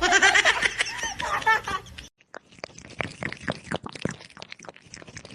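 About two seconds of pitched vocal sounds that rise and fall, then, after a cut, an irregular run of quick crunching clicks like chewing.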